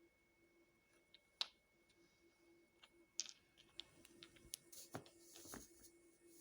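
Near silence: room tone with a faint steady hum and a scatter of faint clicks and taps, more of them in the second half.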